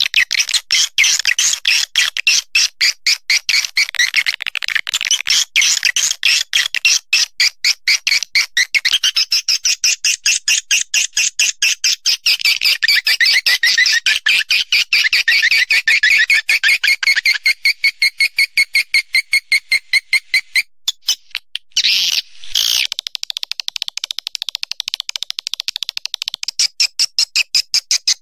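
Recorded swiftlet calls of the kind played to lure swiftlets into a nesting house: a fast, even run of high twittering chirps, several a second, with a short break about three-quarters of the way through.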